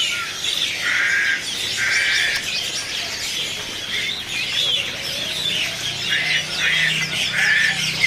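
Many caged birds chirping over one another in a dense chorus. Several harsh, buzzy squawks of about half a second stand out, about a second apart early on and again near the end.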